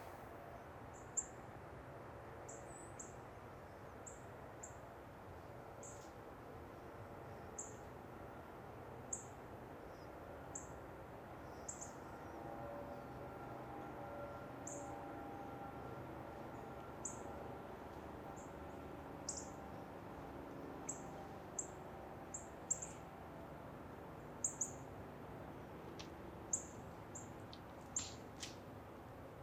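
Short, high-pitched bird chirps repeated irregularly, roughly one every second or so, over a faint low background hum, with a few sharper clicks near the end.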